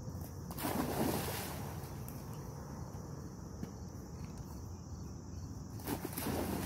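Labrador retriever puppy leaping into a pond with a splash about a second in, then splashing back out of the water near the end, over a low wind rumble on the microphone.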